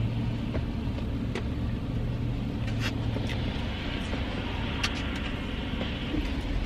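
Steady low hum and rumble of a car engine idling, with a few soft clicks from eating.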